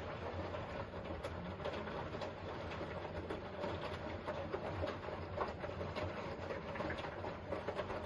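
Hoover H-Wash 500 front-loading washing machine tumbling its load on a colour wash cycle: a steady motor hum under the turning drum, with many scattered light clicks and knocks from the laundry.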